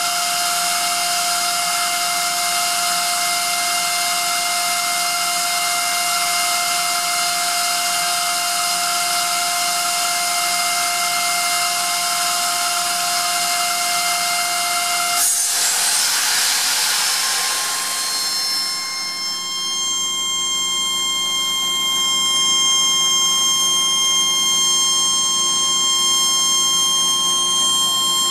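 Atlas Copco ZR 250 two-stage oil-free screw compressor running loaded with a steady multi-tone whine. About halfway through it is switched to unload: a sudden burst of hiss as the compressed air blows off, fading over a few seconds. It then runs on unloaded with a different, higher steady whine.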